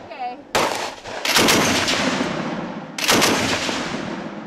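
Hotchkiss Model 1928 machine gun firing short bursts: one shot about half a second in, then two brief bursts of a few rounds each, near a second and a half and near three seconds. Each burst trails a long echo.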